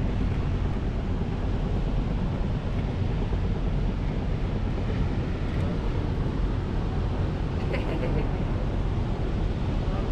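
Tour boat under way on the river: a steady low engine rumble mixed with rushing water and wind on the microphone.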